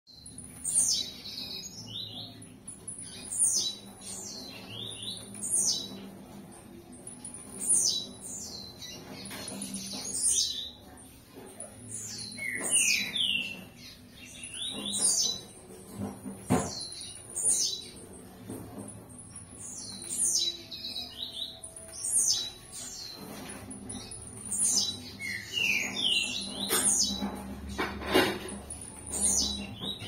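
Caged male blue-black grassquit (tiziu) singing its short, high song, the type breeders call 'campainha', over and over, one quick falling phrase every couple of seconds.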